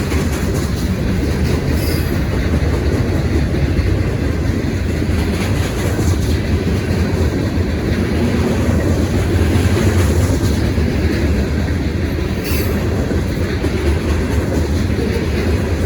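Freight train rolling past close by: a steady loud rumble and clatter of rail cars over the track, with brief high squeals of the wheels about two seconds in and again near twelve seconds.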